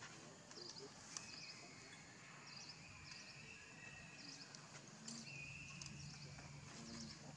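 Faint outdoor background of small animal chirps: short high chirps repeating about every half second to a second, with a thin sustained whistle twice, over a low steady hum.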